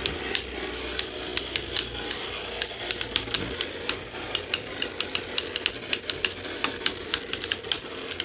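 3D-printed Beyblade spinning tops whirring in a stadium and clashing, with irregular sharp clacks of collisions several times a second.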